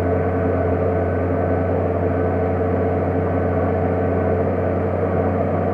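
New Holland T7050 tractor's six-cylinder diesel engine running steadily under load while pulling a plough, a constant deep drone with no change in pitch.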